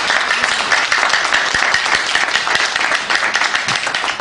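Audience applauding, many hands clapping in a loud, steady clatter.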